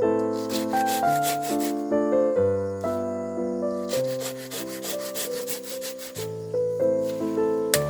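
Background music: keyboard chords stepping through a melody, with a scratchy shaker-like percussion rhythm over them.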